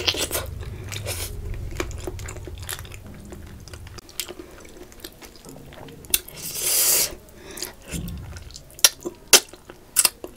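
Close-miked eating of fried fish: chewing and crunching, with wet mouth smacks and sharp clicks. There is a longer noisy patch about six seconds in, and a cluster of sharp smacks near the end.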